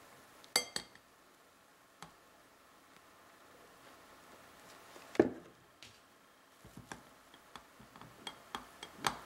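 Light clinks and taps of kitchenware on a stainless steel mesh strainer as blended pineapple is strained into a glass bowl, with a single louder knock about five seconds in. From about seven seconds, a run of soft taps as a silicone spatula works the pulp against the mesh.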